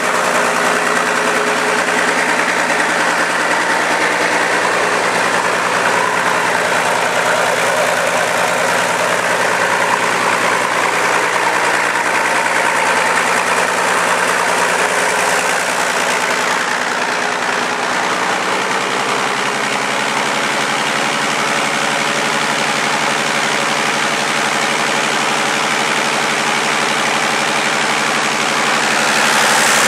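Deutz BF6M1015 V6 diesel being spun by a run-in test stand's drive without firing: preliminary break-in of the engine. It runs steadily, and its tone shifts slightly about two-thirds of the way through.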